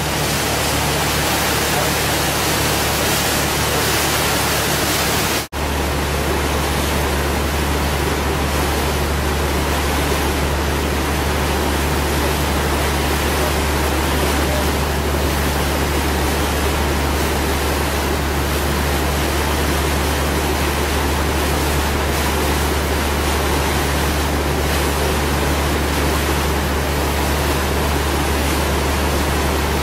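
Steady rush of wind and water with a low engine drone, heard from aboard a moving river cruise boat. The sound drops out for an instant about five seconds in, and the drone comes back stronger.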